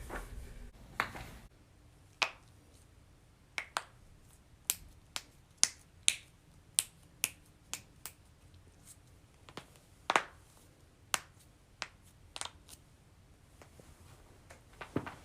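Joints cracking: a series of about twenty sharp pops, irregularly spaced, some coming in quick pairs.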